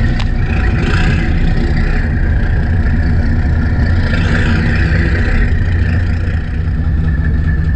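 Fishing boat's engine running steadily, a constant low hum with a steady whine above it. A sharp click sounds just after the start.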